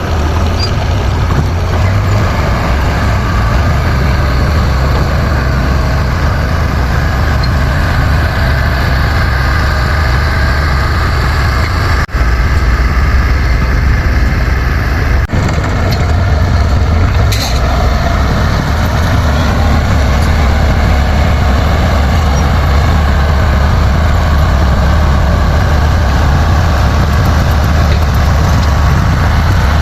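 Bulldozer's diesel engine running steadily, loud and low-pitched.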